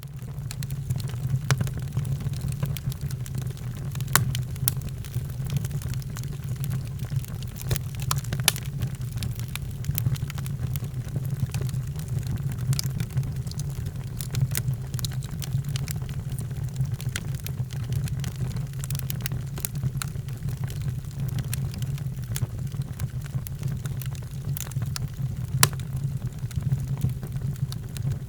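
Wood fire crackling in a fireplace: scattered sharp pops and snaps, a few louder ones, over a steady low rumble.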